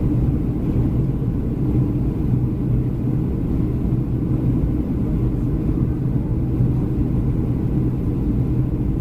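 Steady low drone of a Boeing 737-300's engines and airflow heard inside the passenger cabin, with a constant hum and no sudden knocks or changes.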